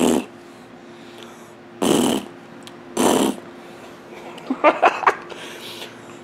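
A baby blowing raspberries: three short, rough, breathy lip-buzzing bursts about a second apart, followed near the five-second mark by a brief voiced squeal or babble.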